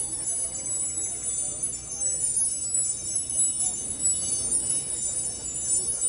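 Band sound check: high, steady chime-like ringing over a low hum, with instruments playing loosely underneath.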